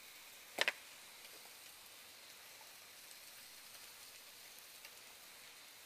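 Faint, steady sizzle of onions and mushrooms sauteing in oil on the grill, with a sharp double knock about half a second in.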